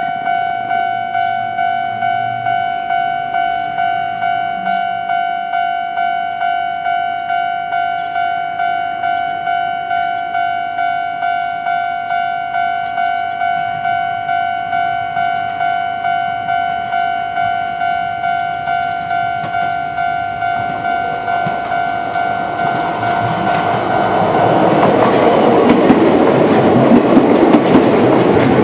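Japanese level-crossing warning bell ringing a steady repeating tone, about one and a half rings a second. About three-quarters of the way through, an Izuhakone Railway electric train approaches and passes with wheels clacking on the rails, its noise growing until it drowns out the bell.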